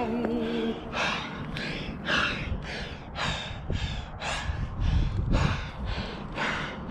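A climber breathing hard, with quick, even, rasping breaths about two a second. The tail of a song with held notes cuts off under a second in.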